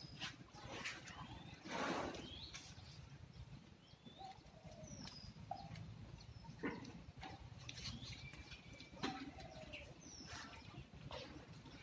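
Small birds chirping in short calls now and then, over scattered knocks and rustling as elephants pick bananas from a plastic crate on a concrete floor; a louder rustling burst about two seconds in.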